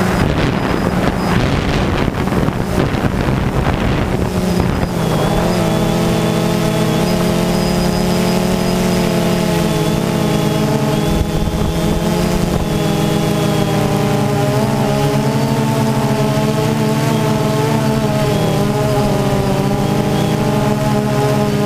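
DJI Phantom 2 quadcopter's four electric motors and propellers whirring steadily in flight, heard close up from the camera slung under it, the pitch wavering slightly as the drone manoeuvres. Gusty wind noise rides over it for the first five seconds or so.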